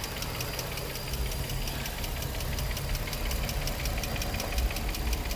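Infiniti G35's 3.5-litre V6 idling with a fast, even ticking knock. The owner is unsure of the cause: lifters or spark plugs are the suggestions he has heard.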